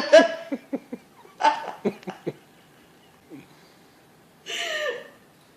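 A person laughing in rapid pulses that die away within the first second. Two more short bursts of laughter follow, the last one near the end.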